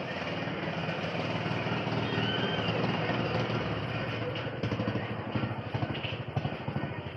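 Steady rumble of a passing motor vehicle, louder for the first couple of seconds, then breaking into a rapid fluttering near the end.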